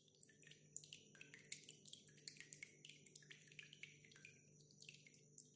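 Faint water drops dripping and plinking, many quick irregular drops, some with a short falling tone, over a low steady hum.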